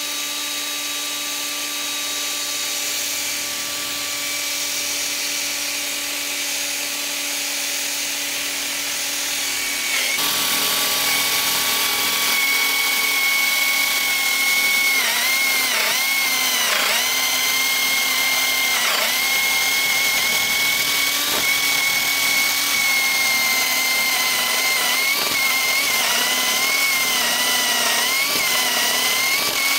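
Cordless drill with a step drill bit boring into a bamboo pole: a steady motor whine that grows louder about ten seconds in, its pitch dipping briefly again and again as the bit bites into the bamboo.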